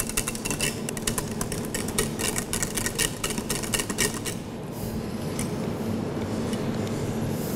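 Wire whisk beating thick, near-boiling pastry cream in a stainless steel saucepan, its wires ticking rapidly against the pan, over a steady hum. The clicking thins out in the second half.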